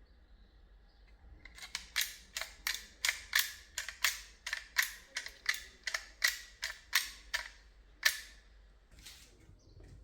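A rapid, even series of about sixteen sharp clicks or taps at roughly three a second, then a single louder click about a second after the series stops.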